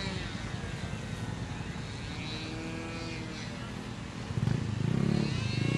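Engine of a P-51 Mustang radio-controlled model plane droning high overhead, its pitch sliding down in the first second as it passes. About four seconds in, a louder, lower buzzing sets in and covers it.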